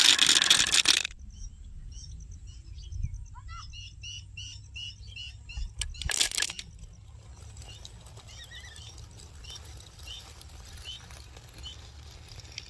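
Wooden marble-run toys clattering: a loud rattle that stops suddenly about a second in, then light, quick clicks and ticks, with one short loud clatter near the middle.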